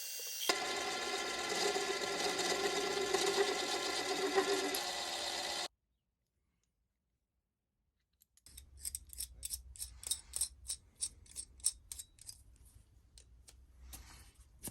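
Mini lathe running steadily with a motor whine of several fixed tones, cutting off abruptly after about five seconds. After a few seconds of silence, a run of light, regular clicks, about two to three a second, over a low hum.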